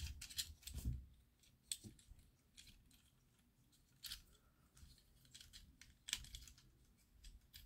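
Faint, scattered clicks and light rattles of a plastic Transformers Holiday Optimus Prime figure being handled, its parts flipped and snapped into place during transformation.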